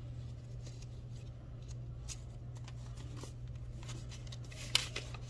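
US paper bills being handled and flipped through by hand, soft scattered rustles with a louder crinkle near the end, over a steady low hum.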